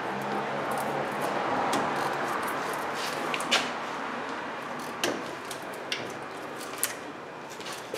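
A ratchet loosening a brake caliper bolt, followed by a few sharp metallic clicks and taps spaced about a second apart as the bolt is worked out.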